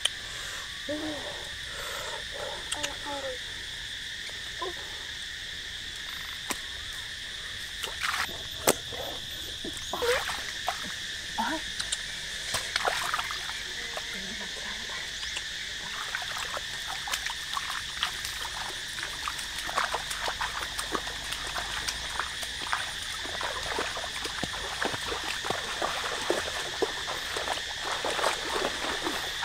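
Steady chorus of frogs and insects, two constant high tones, with repeated splashes and sloshing of water from wading in the shallow flooded field.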